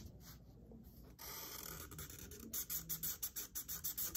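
Marker scratching on paper as a tail is coloured in. It is faint at first, then from about halfway through it becomes quick back-and-forth colouring strokes, several a second.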